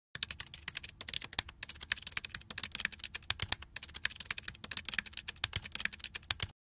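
Typing sound effect: rapid, irregular computer-keyboard key clicks that stop suddenly near the end.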